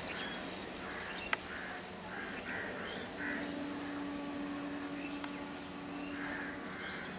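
Crows cawing again and again, with a steady low hum from about three seconds in to near the end, and one sharp click about a second in.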